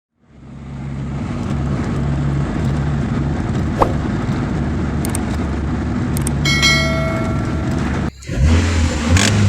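A car engine running steadily, with a short metallic ring about six and a half seconds in. Just past eight seconds the sound cuts out for an instant and comes back deeper and louder.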